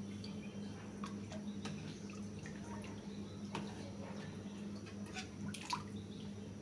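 Soft wet sloshing and scattered light clicks as a metal dal masher (ghutni) is worked through thin boiled lentils in a metal karahi, a few sharper clicks coming after the middle. A steady low hum lies underneath.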